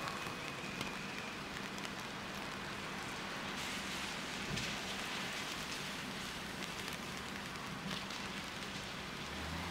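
Rain falling: a steady hiss with scattered light ticks.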